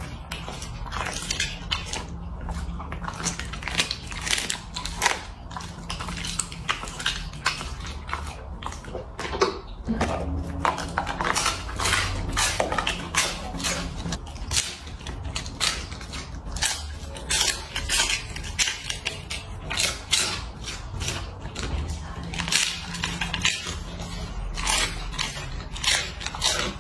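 A dog chewing small dried fish: a quick, irregular run of crisp crunches and bites, with short pauses.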